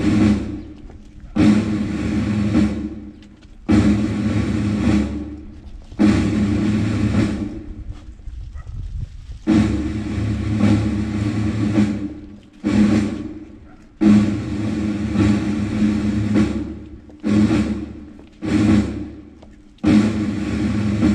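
Repeated drum rolls, each a second or two long, starting suddenly and fading, about a dozen in a row, as wreaths and flowers are laid at a memorial.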